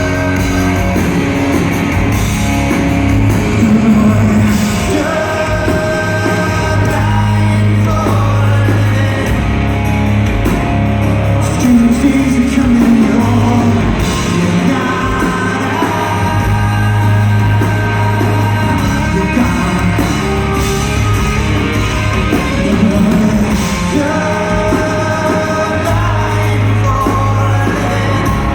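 Live rock band playing a song with singing over it: full band with a steady, heavy bass.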